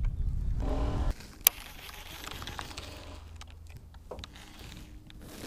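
Handling noise from a hand right at the camera: a low rumble with a brief voice sound in the first second, then one sharp click. Faint scattered ticks follow, and a faint steady hum comes in about four seconds in.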